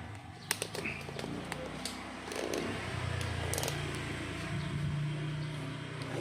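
Sharp plastic clicks and taps as a car instrument cluster is handled and taken apart: several close together in the first two seconds and another about three and a half seconds in, over a low steady hum.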